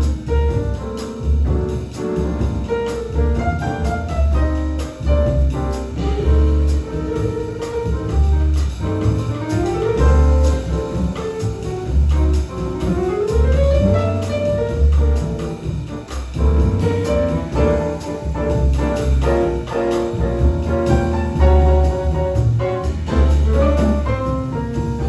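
Live jazz band playing an instrumental passage without vocals: a melodic line with sliding notes over piano chords, a plucked upright double bass walking underneath and drums.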